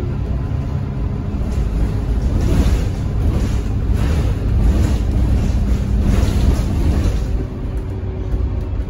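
Alexander Dennis Enviro300 single-deck bus under way, its engine drone and road rumble heard inside the saloon. The noise is steady and low, with some extra hiss swelling a few times midway.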